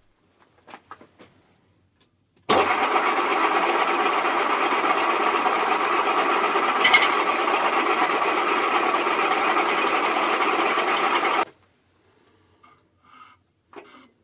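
Small milling machine's spindle motor running steadily for about nine seconds, starting and stopping abruptly, with one sharp click about halfway through. A few faint clicks come before it and a few light knocks after it.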